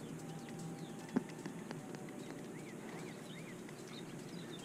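Faint outdoor ambience beside a pond, with a few soft chirps and a single short click about a second in.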